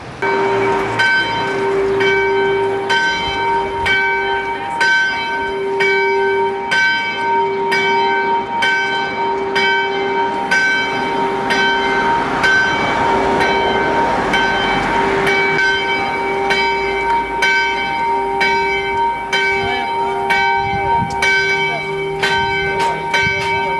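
A church bell tolling, struck steadily about once a second, each stroke ringing on into the next.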